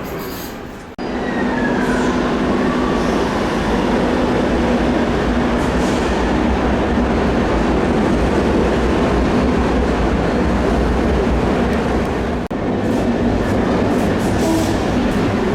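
Electric passenger train running through a station: a loud, steady rumble of wheels and motors with a low hum, and a falling whine just after a second in.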